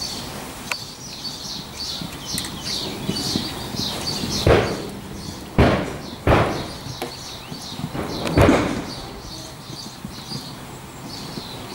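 Four loud, dull thumps between about four and nine seconds in, over birds chirping in the first half.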